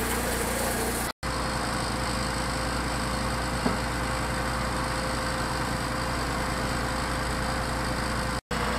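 An engine idling steadily, a low even rumble with a steady hum, cutting out completely for an instant twice: about a second in and near the end.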